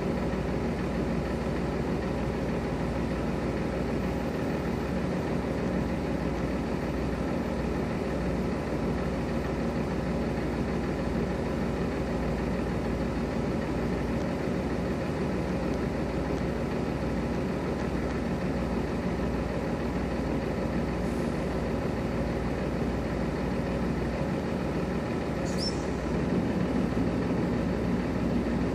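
Semi-truck diesel engine running steadily at idle, with a brief high squeal near the end and the engine a little louder just after.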